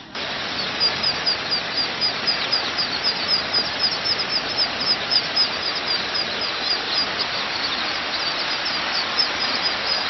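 A dense chorus of a large flock of ducklings peeping all at once, with many short high falling peeps overlapping without a break.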